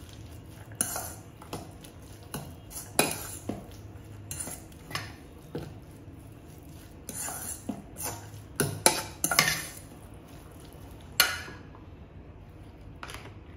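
A metal fork clinking and scraping against a stainless steel mixing bowl as shredded vegetable and chicken filling is stirred, in quick irregular strikes. The clinking stops about two seconds before the end.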